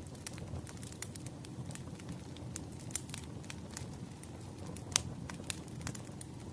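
Wood fire crackling: a steady low rumble of burning logs with irregular sharp pops and snaps, the loudest pop about five seconds in.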